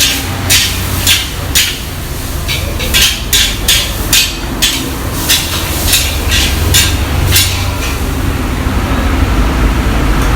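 Metal spatula scraping and striking a wok in quick, bright strokes, about two a second, stopping about three-quarters of the way through. A steady low rumble runs underneath.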